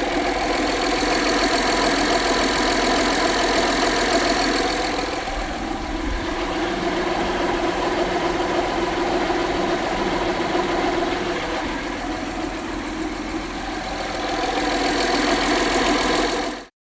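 Honda V6 engine idling steadily, the engine that developed a low rumble/rattle after a timing belt replacement. The high hiss fades about five seconds in and comes back near the end, and the sound cuts off suddenly at the close.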